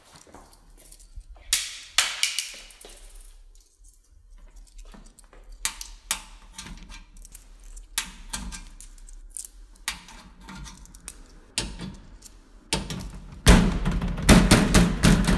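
Vintage Coca-Cola bottle vending machine making a series of sharp metal and glass clicks and clinks from its mechanism. About 13 seconds in, a motor starts with a steady low hum under a dense rattling clatter.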